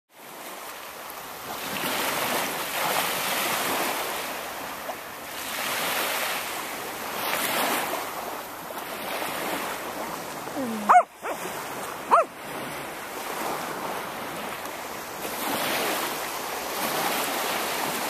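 Small surf breaking and washing onto a sandy beach, swelling and fading every few seconds. A little past halfway, a dog gives two short, loud barks.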